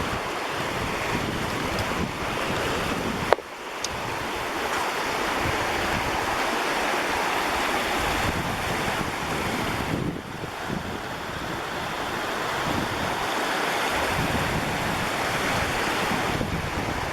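Rushing water of a mountain river, a steady rush, with wind buffeting the microphone. There is one sharp knock about three seconds in.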